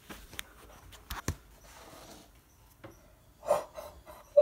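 Handling noise from a phone being carried: a few sharp clicks and knocks, then a short breathy sound near the end.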